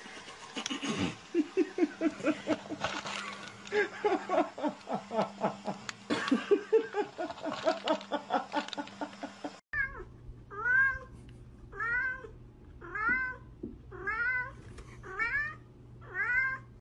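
A cat eating from a bowl, making fast, short hummed vocal sounds with its chewing. After a cut, a kitten mews seven times, about once a second, over a steady low hum.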